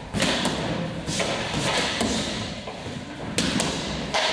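Boxing gloves striking focus mitts: a run of sharp punch impacts at irregular spacing, several in quick pairs.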